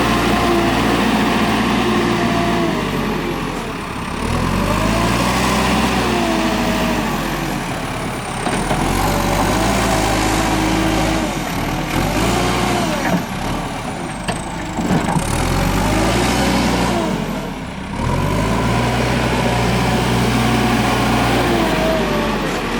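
Diesel engine of a JCB 3CX backhoe loader running, its speed rising and falling repeatedly as the machine works, with a few sharp knocks about halfway through.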